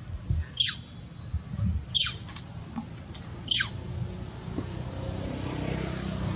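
Three short, high-pitched chirps, each sweeping sharply downward, about a second and a half apart. In the second half a low engine hum from a vehicle grows and holds steady.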